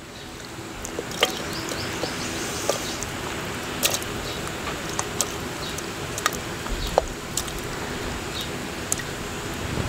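Chunks of raw lamb and fat dropped by hand into water in a clay cooking pot, giving scattered short plops and knocks over a wood fire's crackle and a steady outdoor background hiss.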